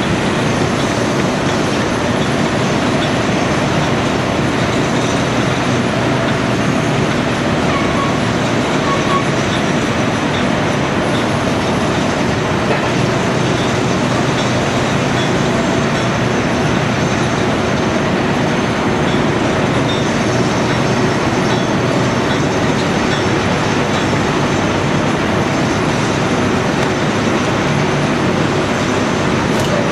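Caterpillar 345C L excavator's diesel engine running steadily at a constant pitch, with no change in speed.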